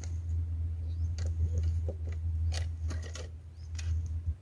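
Spinning reel being cranked, its gears whirring and clicking, over a steady low rumble.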